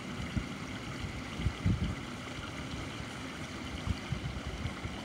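Steady outdoor background hiss with irregular low thumps on the microphone, the strongest about a second and a half in.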